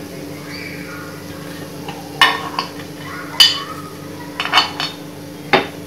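A metal spoon clinking against a paniyaram pan as the dumplings are turned in their wells. There are sharp clinks about two seconds in and again a second later, a quick cluster of three around four and a half seconds, and one more near the end, over a steady low hum.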